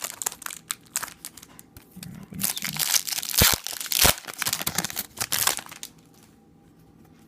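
A trading card pack's wrapper being torn open and crinkled by hand. Scattered crackles build to a dense stretch of crinkling with two sharp, louder rips in the middle, then it dies away about six seconds in.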